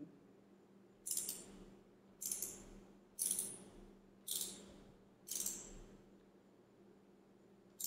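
Ratchet clicking on a spark-plug socket in six short bursts, about one a second with a pause before the last, as a new spark plug is snugged into the cylinder head.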